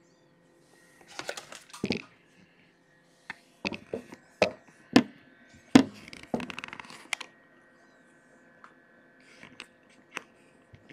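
Handling noise: a string of sharp clicks, knocks and rustles from objects being picked up, moved and set down, thickest about one to two seconds in and again from about three to seven seconds, with a few faint clicks near the end.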